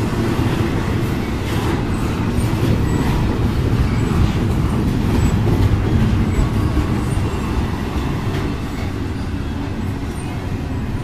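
Double-stack intermodal container train rolling past close by: a steady, loud low rumble of freight car wheels on the rails.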